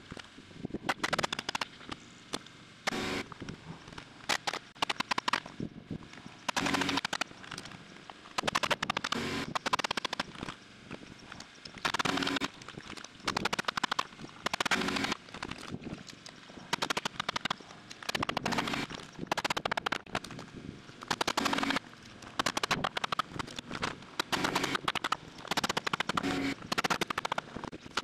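Short rattling clusters of sharp knocks every second or two: nailing into the wooden rafters and top plate of a timber-framed shed roof.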